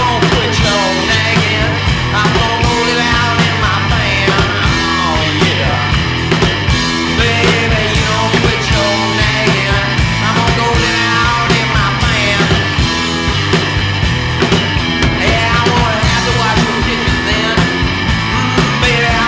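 Rock 'n' roll band recording playing at a steady beat.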